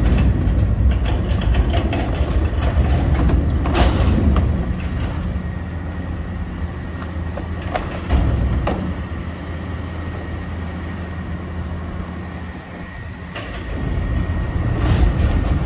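Peterbilt front-loader garbage truck's engine idling steadily while a steel dumpster on casters is pushed across asphalt, its wheels rumbling, with several clanks and knocks from the bin and its lids.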